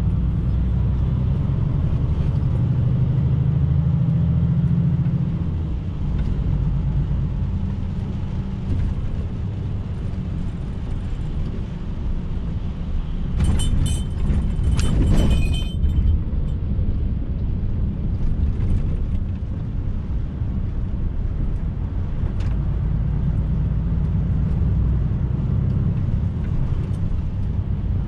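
Lorry's diesel engine and road noise heard from inside the cab while driving, a steady low rumble. About fourteen seconds in, a brief rattling clatter with a ringing metallic note stands out for a couple of seconds.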